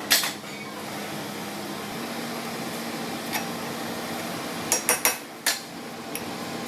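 Metal tools clinking and knocking on metal: one sharp knock near the start, then a quick run of three or four clanks about five seconds in, over a steady low hum.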